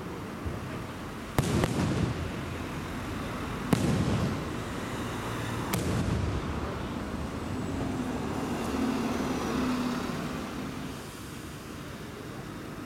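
Aerial firework shells bursting: a small bang, then three sharp bangs about two seconds apart, each trailing off in a low rolling rumble. The bangs die away to a low background noise near the end.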